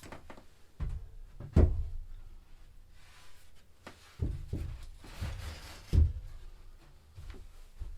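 A series of about seven dull thumps and knocks as building materials are handled and set down, two of them louder than the rest, with light scraping in between.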